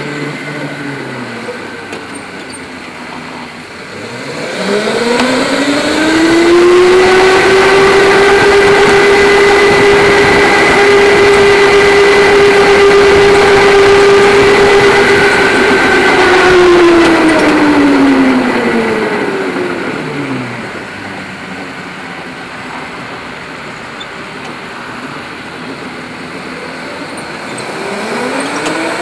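Electric go-kart motor whining under the driver: the pitch rises as the kart accelerates, holds steady for about ten seconds at full speed, then falls away as it slows for a corner, and begins rising again near the end. A steady rushing noise of tyres and moving air runs underneath.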